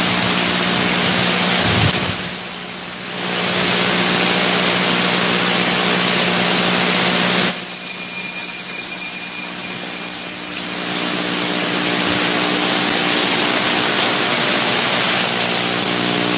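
Steady background hiss with a low hum. A brief brighter, high-pitched tone rises over it about eight seconds in and lasts about two seconds.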